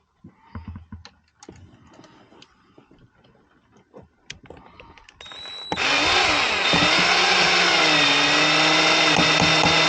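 Electric drill/driver running at speed for several seconds, starting about five and a half seconds in, driving a fixing home for the curtain track. Its pitch sags briefly as it takes load. Before it, only faint handling clicks.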